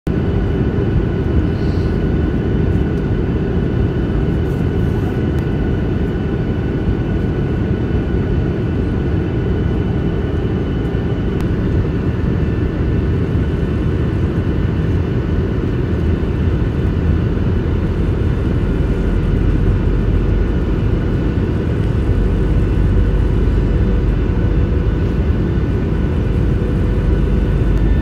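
Airliner cabin noise: a steady, deep rush of engine and airflow, with faint steady whines above it.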